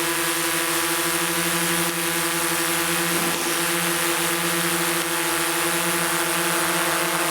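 Quadcopter drone hovering close by, its propellers giving a steady, loud, many-pitched whine over a hiss. Its downwash is fanning a campfire.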